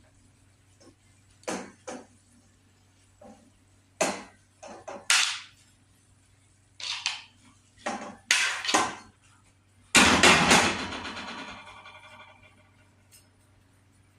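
Metal cookware knocking and clattering in a series of short knocks, then a loud clang about ten seconds in that rings out and fades over about two seconds.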